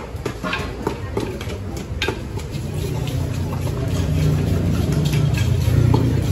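Scattered knocks and clicks of a pestle in a mortar and a knife cutting tomatoes, with a low engine hum that builds from about halfway through and is loudest near the end.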